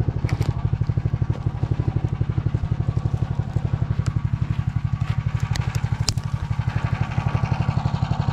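Motor Sich engine running steadily with an even, rapid putting beat, with a few light clicks over it.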